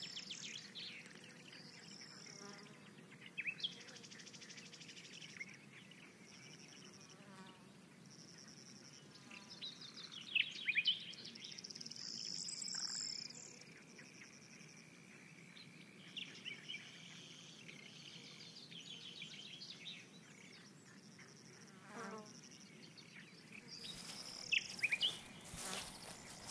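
Insects in a summer meadow chirping in repeated high trills, with short bird chirps now and then, loudest about ten seconds in and again near the end, where a few sharp clicks also come in.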